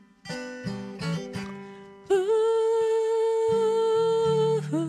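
Acoustic guitar notes ringing and dying away in a short break in the song. About two seconds in, a singer scoops up into one long held "ooh" note over a bass line.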